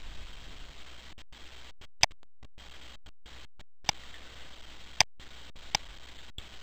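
Computer mouse clicks: about five sharp single clicks, spaced a second or so apart, the loudest about two seconds in, over a steady hiss that drops out briefly several times.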